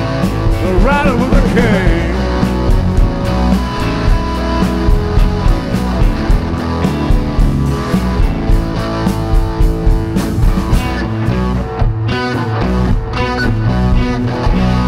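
Live blues-rock band playing an instrumental passage: electric guitar lead with bending, wavering notes over bass guitar and a drum kit keeping a steady beat.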